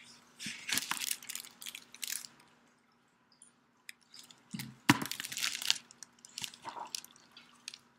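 Pages and cover of a hardcover picture book being handled and turned close to the microphone: paper rustling and crackling in irregular bursts, with a sharp tap just before five seconds in.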